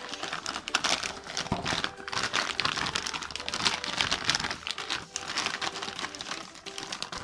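Packaging crinkling and rustling as a new motorcycle stator is unwrapped and handled, an irregular crackle throughout.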